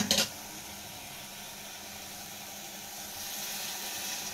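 Water being poured into a hot aluminium pressure cooker of fried potato-and-pea masala: a steady hiss from the hot pan, then a brighter splashing rush of water from about three seconds in. A brief clatter comes right at the start.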